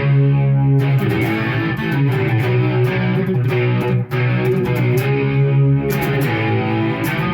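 Electric guitar played through a Marshall MG100HFX amplifier and 200-watt cabinet: a hard rock riff of held, overdriven chords with a short break about four seconds in.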